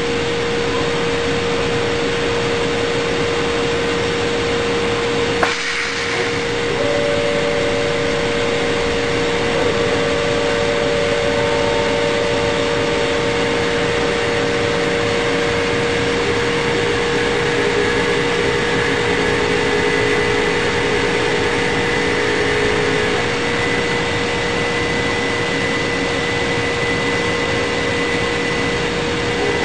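CNC machining centre running and cutting, a steady mechanical noise with a constant spindle whine. There is a sharp click about five and a half seconds in.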